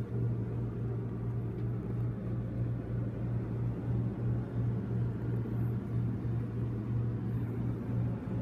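Wall-mounted air conditioner running in a small trailer, a steady low hum.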